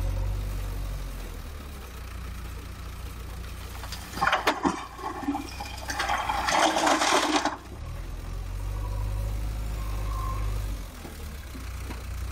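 JCB 3DX backhoe loader's diesel engine running while its front bucket tips a load of stones into a tractor trailer. A few sharp knocks come about four seconds in, then a rush of stones clattering into the trailer bed for about a second and a half, after which the engine hum carries on.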